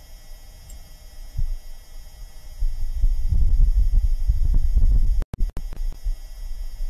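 Perseverance rover microphone recording from the surface of Mars: a faint steady hum of the rover's own self-noise, then a low rumbling gust of Martian wind that swells about two and a half seconds in. The rumble cuts out briefly twice a little after five seconds, then rises again near the end.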